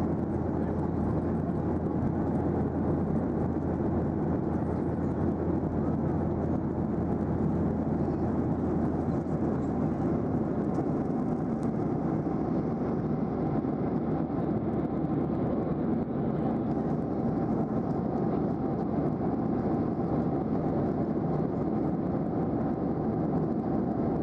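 Steady cabin noise inside a Boeing 737-800 in flight: an even rush of airflow and the drone of its CFM56 engines, heard from a window seat.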